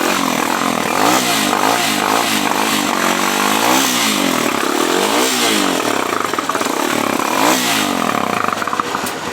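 Motorcycle engine revved up and down several times through the exhaust of a new bike, the exhaust note its owner dislikes and wants replaced with a softer-sounding pipe.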